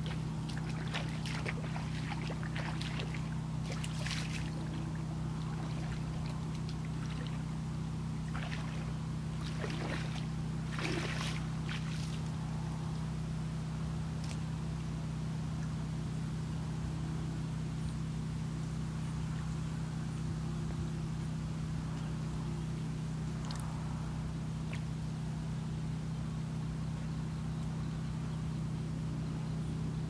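A steady low engine drone, even and unbroken, with short rustling clicks scattered through the first dozen seconds.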